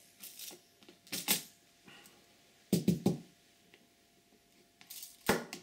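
A bar magnet being set down on clear plastic plates of a magnetic-pin field apparatus: a handful of separate light clicks and knocks of magnet and plastic, with the sharpest knock near the end.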